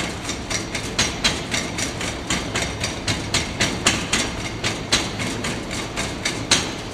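A hand sand rammer's pointed end pounding molding sand packed in a casting flask, about three strokes a second, compacting a layer of sand around the pattern. A steady low hum runs behind the strokes.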